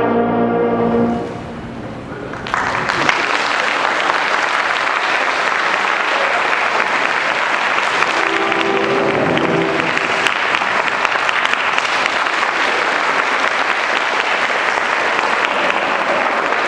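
A wind band's closing chord dies away, then audience applause breaks out about two and a half seconds in and continues steadily.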